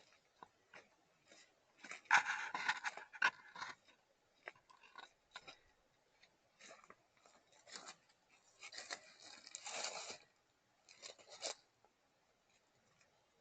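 Scraping and crunching handling noises in two main bursts, one about two seconds in and one about nine seconds in, with scattered clicks between them.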